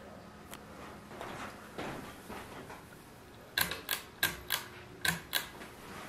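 Hunter ceiling fan running with a low, steady motor hum; a little past halfway come six sharp clicks in three quick pairs, the fan's pull-chain switch being pulled and released three times.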